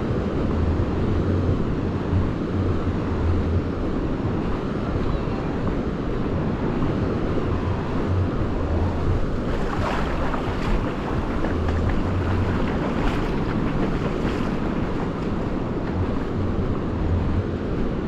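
Wind buffeting the microphone in uneven gusts over the steady wash of sea surf.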